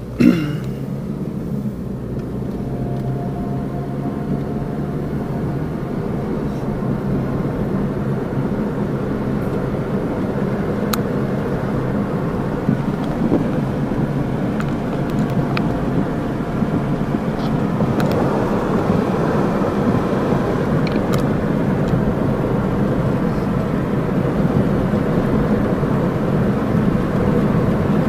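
Inside a moving car on a highway: steady engine hum and the rush of tyres on the road, growing gradually louder through the stretch.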